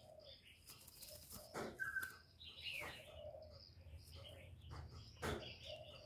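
Spotted dove in a wire cage giving a series of short, soft, low coos, with a few sharp knocks and rustles, the loudest about two seconds in and again near the end.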